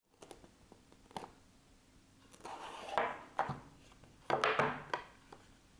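Small cardboard product box handled and opened by hand. A few light taps, then two bouts of sliding, rubbing noise as the lid is drawn off; the louder one is about four and a half seconds in.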